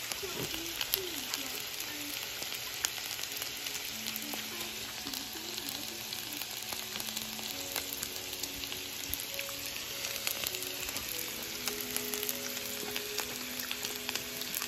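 Pork belly, shrimp, noodles and vegetables frying on a hot electric griddle: a steady sizzle with many small crackles and pops.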